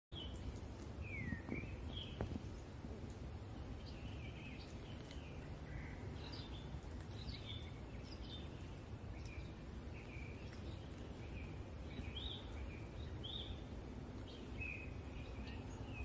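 Several songbirds singing in spring woodland: short chirps and brief phrases, often more than one a second, from more than one bird. Underneath is a steady low rumble, with two faint knocks near the start.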